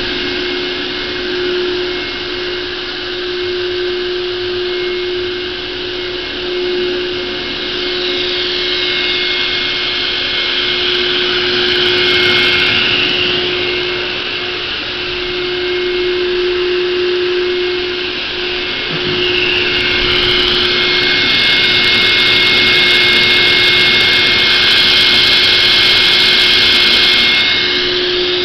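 Oliver 88D 16-inch table saw running freely at speed, a steady motor hum under a steady high whine, with no cut being made.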